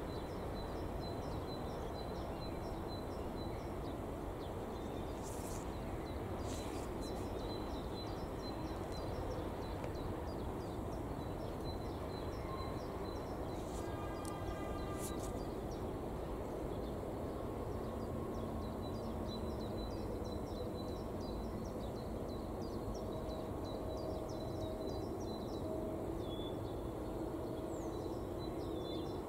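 Steady low rumble of a slow freight train rolling away in the distance, with birds calling over the outdoor background. A brief high-pitched note sounds about halfway through.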